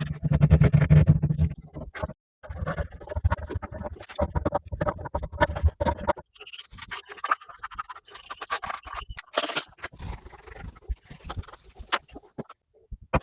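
Irregular scraping and scratching with many sharp clicks of hands working shower fittings, plus a short hiss about two-thirds of the way through.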